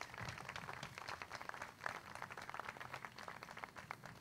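Audience applauding: many separate hand claps that thin out near the end.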